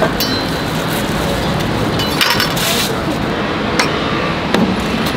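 Crepe handling at a griddle stall over steady background noise: a few sharp clinks and knocks from the metal spatula and the handling, and a short rustle about two seconds in as the crepe is wrapped in paper.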